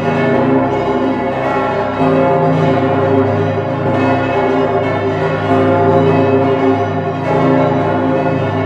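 Full peal of St. Stephen's Cathedral's swinging bronze bells, tuned from c° upward, with the Pummerin ringing along. Heard from close up inside the bell chamber, the strikes overlap into a continuous, loud, dense wash of ringing tones.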